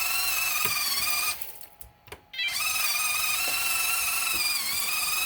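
Electric drum motor and gearbox of an RC concrete mixer truck whining steadily as it turns the drum to discharge its load. The whine cuts out about a second in and starts up again a second later.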